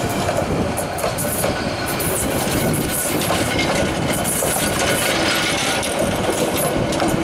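Bangladesh Railway intercity passenger coaches rolling past close by: a steady loud rumble of steel wheels on the rails, laced with the clickety-clack of wheels crossing rail joints.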